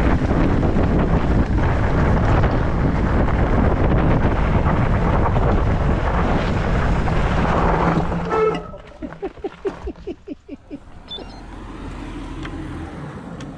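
Wind buffeting the microphone of a chest-mounted camera on a moving mountain bike. About eight seconds in the wind noise drops away sharply, with a brief squeal and then a run of soft rapid knocks, about five a second, as the bike slows.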